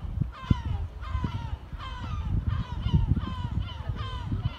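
Gulls calling over and over, many short overlapping cries, over a low, uneven rumbling noise.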